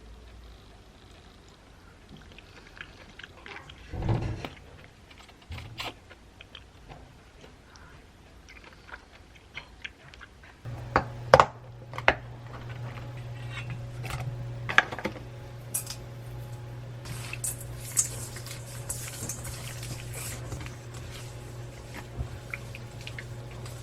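Kitchen work noises: scattered clicks and clatter of utensils and dishes, with a thump about four seconds in. After two sharp clicks about eleven seconds in, a kitchen appliance switches on and hums steadily, with light clicks and a brief hiss over it.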